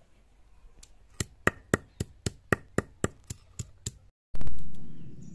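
Garlic cloves being pounded with a hand-held grinding stone on a slab: a run of about eleven sharp knocks, roughly four a second. After a brief break, a loud sudden noise starts and fades away over about a second.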